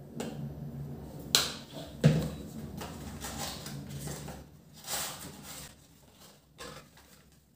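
Kitchen handling sounds: two sharp knocks of containers set down on a countertop, then crinkly rustling as a paper-wrapped baking powder packet is unfolded, and a last small click near the end.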